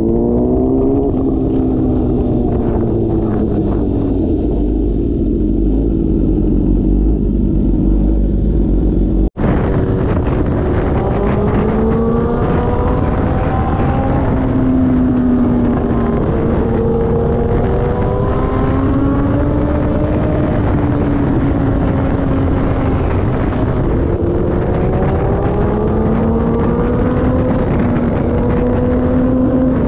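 Suzuki GSX-R1000R's inline-four engine running under way, its pitch rising and falling as the throttle opens and eases, with wind noise on the microphone. The sound drops out for an instant about nine seconds in, then returns with more wind.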